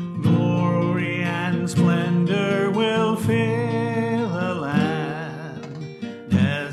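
A hymn played on acoustic guitar with a singer, steady and continuous, the held sung notes wavering with vibrato about two-thirds of the way through.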